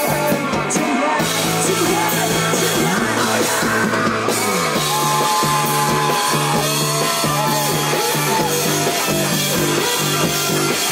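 Rock band playing live: electric guitars, bass guitar and drum kit, with a voice singing over them. There are held, bending high notes in the middle.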